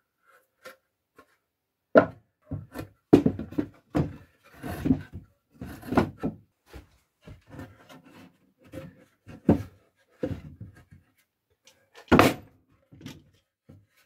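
Wooden beehive super boards knocking and scraping against each other and the bench as the sides are handled and stood up into a box: a string of irregular knocks, the loudest about two seconds in and near the end.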